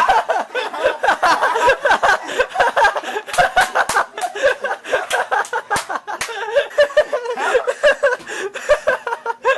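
People laughing and snickering, with scattered sharp knocks and bumps throughout.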